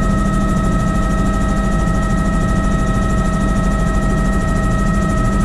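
Helicopter in flight heard from inside the cabin: a loud, steady drone of rotor and engine with a constant high whine over it.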